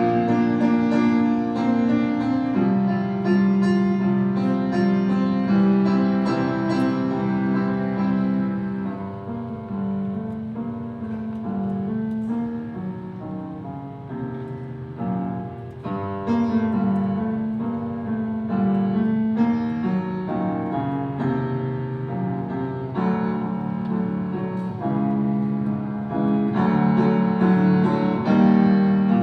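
Live band playing an instrumental passage led by piano or keyboard, with no singing; it eases off in the middle and builds again near the end.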